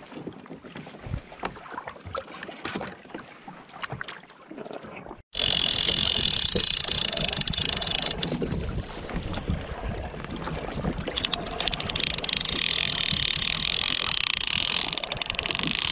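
Water lapping around a pedal kayak with small knocks. About five seconds in, it changes abruptly to a loud, steady rush of wind and water on the microphone with a strong high hiss that fades and then returns stronger near the end.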